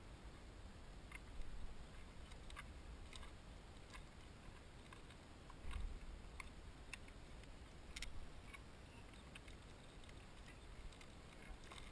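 Faint outdoor ambience: a low rumble that swells a few times, most likely wind on the helmet camera's microphone, with scattered light clicks and ticks.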